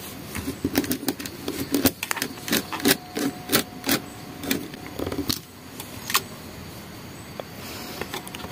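Screwdriver tightening a wire into the terminal screw of a miniature circuit breaker: quick metal clicks and taps of the tip and plastic housing, with wires being handled. The clicking is thick through the first six seconds, then thins to a few taps.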